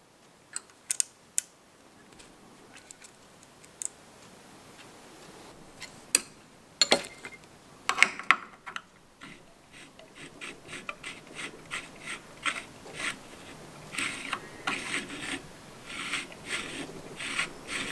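Small metal parts of a Ford Model A distributor clicking and scraping as a new breaker (points) plate is seated in the distributor body and turned through its travel. A few separate sharp clicks at first, then busier clicking and rubbing through the second half.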